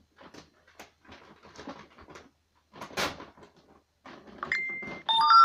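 Plastic feed sack rustling and crinkling as it is handled, with one loud crinkle about three seconds in. Near the end come high, steady whines at several pitches at once, as of dogs whining while they wait to be fed.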